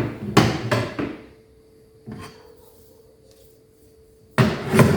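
Knocking and clattering of a stainless steel drawer runner being handled and set against the wooden cabinet side: a quick run of knocks at the start, a single lighter one about two seconds in, and another run near the end.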